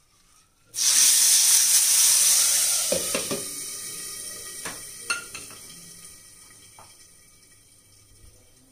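Hot mustard-oil tadka with whole spices and red chilli powder poured onto cooked mustard greens. A loud sizzle starts suddenly about a second in and fades away over several seconds, with a few light metal clinks along the way.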